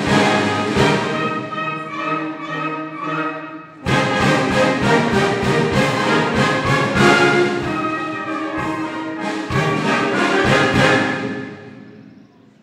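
Wind band of brass and woodwinds playing a piece with a regular beat. About four seconds in the music dips and then comes back in abruptly, and it fades out near the end.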